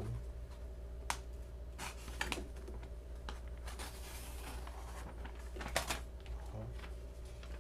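Sheets of paper and small objects handled on a tabletop: a few scattered light clicks and taps, with a short papery rustle near the middle.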